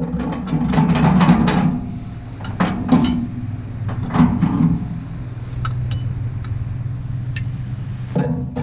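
Metal clanks and clinks from working the hitch of a steel implement tongue and its jack at the rear of a tractor: a cluster of knocks about a second in, more around three and four seconds, and another near the end, over a steady low hum.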